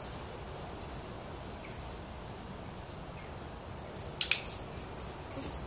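A sharp double click about four seconds in, the loudest sound, over a steady low background rumble.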